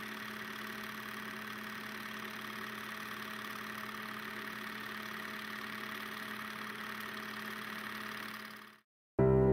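Film projector running: a steady mechanical whirr with a fast, even clicking. It fades out near the end.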